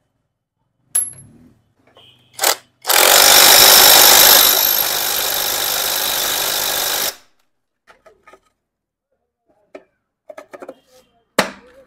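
Cordless impact wrench hammering a nut tight on the gear shaft beside the clutch of a motorcycle engine, running about four seconds: loudest for the first second and a half, then steadier and lower until it stops. A few short knocks of parts being handled come before and after.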